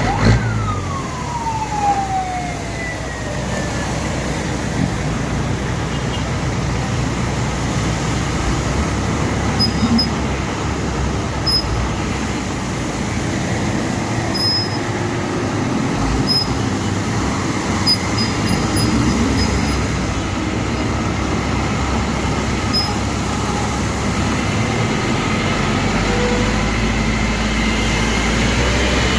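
Heavy rain falling steadily, mixed with road traffic. Just after the start a single whine falls steadily in pitch over about three seconds.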